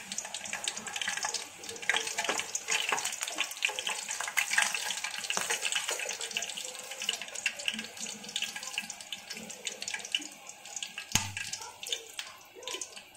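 Cinnamon, cloves and fennel seeds sizzling and crackling in hot oil in a non-stick kadai, a steady fine spattering. A single bump near the end.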